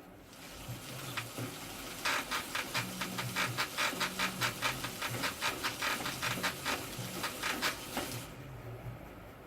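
Spinning bicycle wheel ticking rapidly and evenly, about five ticks a second, over a rushing hiss. The ticking runs for about six seconds and then stops.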